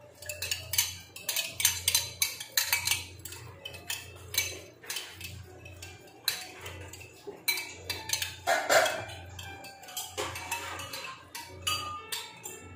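A metal spoon beating eggs in a glass bowl, clinking against the glass several times a second, with one louder, longer sound about nine seconds in.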